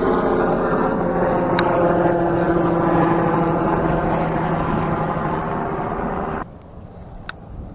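An engine running steadily, a droning hum with several tones that drift slightly in pitch, which cuts off abruptly about six and a half seconds in.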